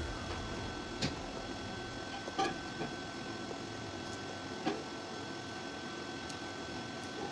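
Knife trimming the stem ends off green chillies over a plastic basket: a few small sharp clicks, about four in seven seconds, over a faint steady hum.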